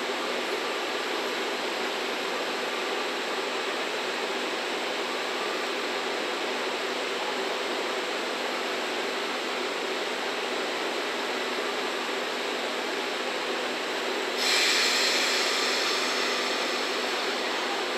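A standing EF65 electric locomotive with its equipment running: a steady whirring hum under the station's background noise. About fourteen seconds in, a loud hiss starts suddenly and slowly fades.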